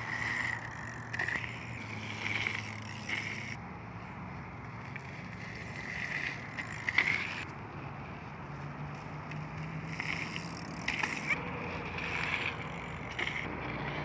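BMX bike riding a dirt jump track: tyres rolling over loose dirt and the bike rattling, with a sharp knock about seven seconds in.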